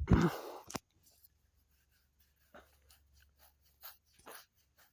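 A brief loud rush of noise at the very start, then faint, scattered crunches and rustles, about five short ones spread over the last half of the stretch.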